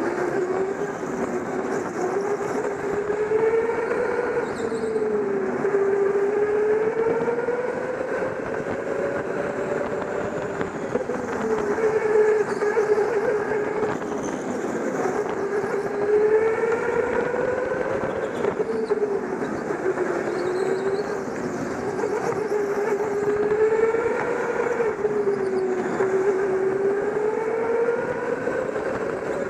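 Go-kart motor running under the driver, its whine rising and falling in pitch every few seconds as the kart speeds up on the straights and slows for the corners.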